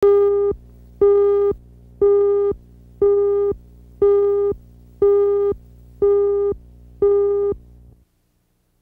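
Electronic countdown beeps: eight short beeps of the same mid pitch, about half a second each, one per second. A low hum under the gaps stops with the last beep.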